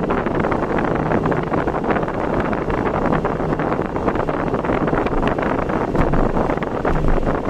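Vehicle travelling at road speed, with a steady rush of wind buffeting the microphone over road and engine noise and a faint low engine hum underneath.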